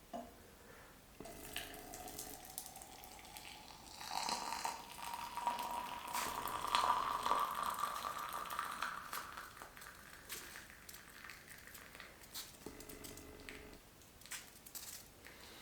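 Water being poured or running into a vessel. A faint tone rises slowly over several seconds, with light clicks and knocks scattered through.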